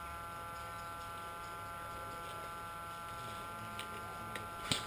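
A faint, steady electrical whine over a hiss, with a few short sharp clicks near the end.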